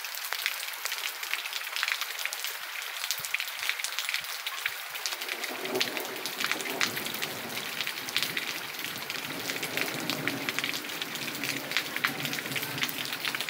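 Steady rain falling, a dense patter of drops on pavement and ground. From about five seconds in, the lower rush of muddy runoff water flowing along the street joins it.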